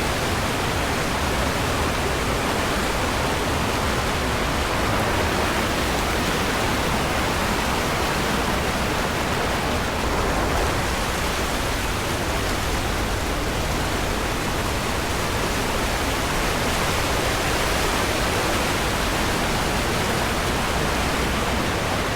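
River water rushing over rocks and falls: a steady, loud roar of whitewater that holds even throughout.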